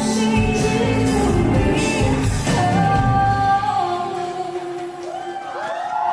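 Live pop song with a female singer and band. About halfway through, the drums and bass drop out and a few long held notes carry on as the song winds down.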